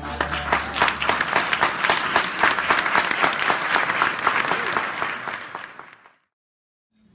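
Audience applauding a singer after her song: dense clapping that thins out and fades away about six seconds in.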